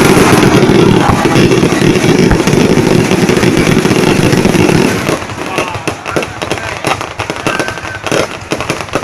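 Fireworks display: a dense, loud barrage of bursts for about the first five seconds, then quieter rapid crackling pops.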